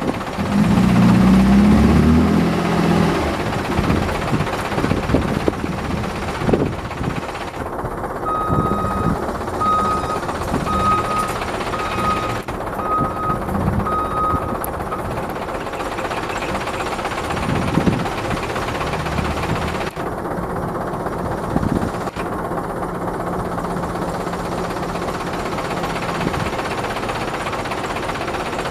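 Mitsubishi Colt Diesel dump truck's diesel engine clattering and revving up at the start, with a reversing beeper sounding about seven times, once a second. Later the engine holds a steady raised speed while the hydraulic hoist lifts the tipper bed to dump the soil.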